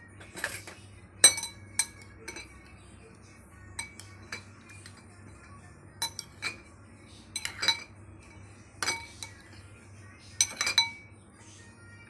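Kitchen utensils and dishes clinking and knocking together: about a dozen separate sharp clinks with a brief ringing tone, at irregular intervals, the loudest about a second in and a cluster near the end.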